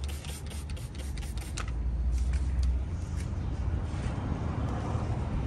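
A spray bottle squirted several times in short bursts, and a hand rubbing vinyl pinstripe decals down onto a truck cab's side, over a steady low rumble.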